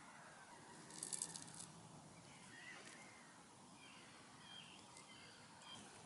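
Near silence: faint open-air shoreline ambience with a few distant bird calls, and a brief high rattling crackle about a second in.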